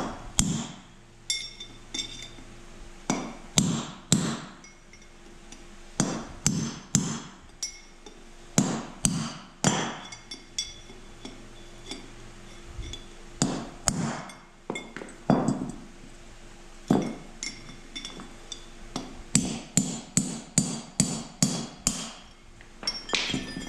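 Hammer driving a punch against the old steel wheel-bearing races in a 1989 Toyota pickup's front hub to knock them out: sharp metallic strikes that ring briefly, coming in quick runs with short pauses between.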